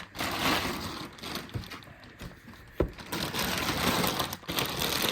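Large plastic bag rustling and crinkling as it is handled, in two spells, with one sharp knock a little under three seconds in.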